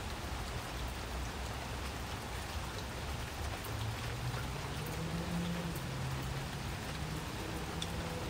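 Steady hiss of background noise, with a few faint crinkles and ticks as a vinyl decal on transfer tape is handled. A faint low hum comes in about halfway through.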